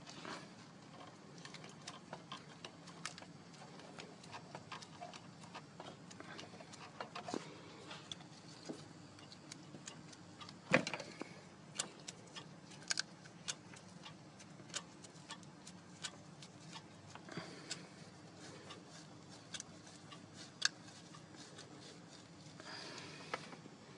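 BSE engine running steadily with irregular sharp knocks and ticks over its low hum: piston knock. The loudest knock comes about eleven seconds in.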